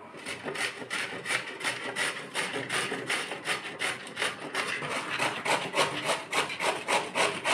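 Peeled bottle gourd (lauki) being grated on a stainless-steel box grater, rasping in quick, even strokes, about three a second.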